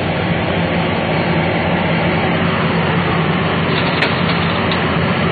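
Liebherr crawler excavator's diesel engine running steadily under load with a constant drone as the machine swings and dumps a bucket of earth into a dump truck. A short, sharp knock sounds about four seconds in.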